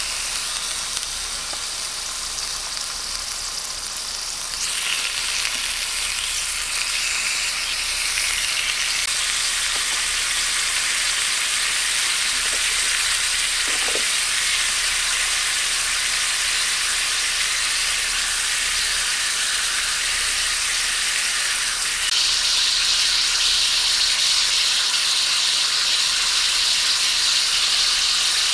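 Slices of meat sizzling in a cast-iron skillet over a camping gas burner, a steady frying hiss. It grows louder about four seconds in and again near the end as more meat goes into the pan.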